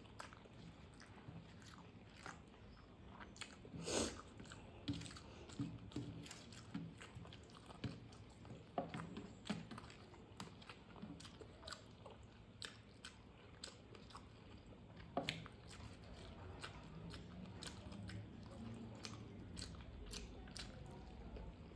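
Close eating sounds of a person chewing and biting through a meal of rice with Bengali fish and vegetable dishes: wet mouth noises and many short sharp clicks, with louder bites about four seconds in and again about fifteen seconds in.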